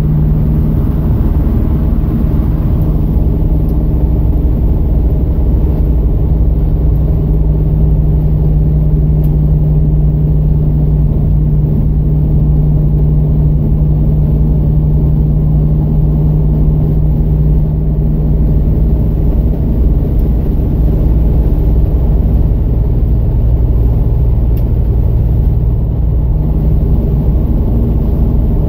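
Plymouth Scamp cruising at steady highway speed, heard from inside the cabin: a loud, even drone of engine and road noise with a steady low hum.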